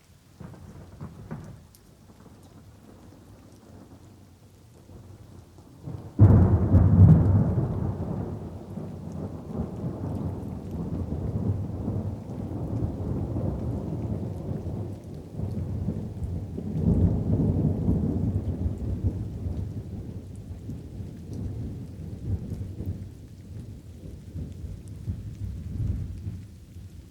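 Thunder in a light rain shower: a short rumble about a second in, then a loud crack of thunder about six seconds in that rolls on and slowly fades, swelling again near the middle, over the steady patter of rain.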